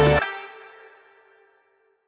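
Background music with a steady beat that stops a fraction of a second in, leaving one held note ringing out and fading away by about halfway through.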